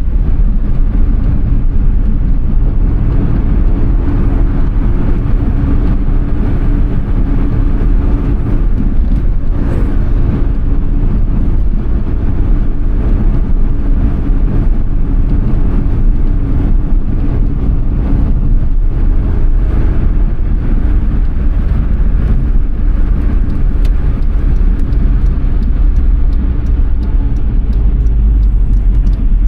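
Suzuki Alto Works HA11S, a three-cylinder turbo kei car, driving along: steady engine and road noise, with most of the sound low in pitch.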